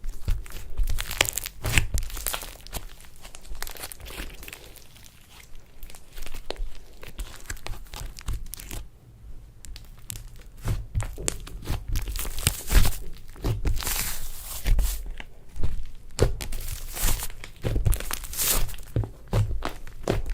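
Slime being squeezed and stretched by hand, giving an irregular run of sharp crackles and rustling that starts suddenly.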